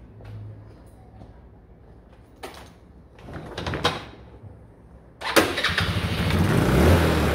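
A few light knocks, then the single-cylinder four-stroke engine of a Yamaha Cygnus X scooter, rebuilt with a full modification kit, fires abruptly about five seconds in and keeps running loudly on its first test start.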